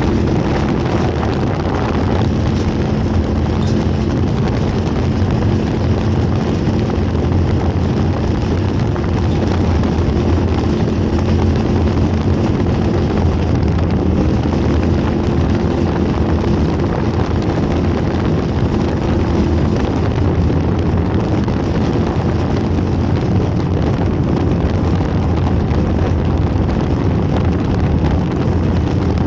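Off-road race vehicle's engine running hard with heavy wind and road noise. The engine note holds mostly steady, dips briefly about halfway through, then climbs again.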